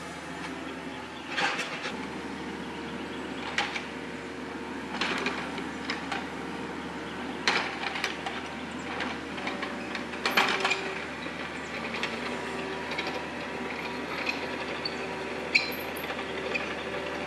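Kubota KX91-2 mini excavator's diesel engine running steadily under work, with sharp clanks and scrapes every few seconds as the bucket digs and drags through dirt and pit gravel.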